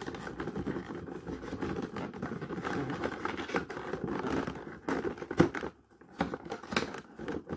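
Cardboard gift box being folded shut and pressed closed by hand: rustling and scraping of the card, with a sharp tap about five seconds in.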